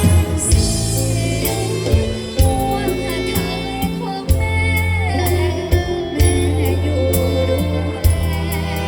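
Music: a song with a singing voice over bass and a drum beat.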